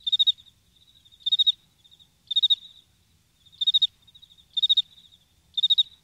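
Cricket chirping: short chirps on one high pitch, about one a second, each a quick run of pulses, with fainter chirps in between.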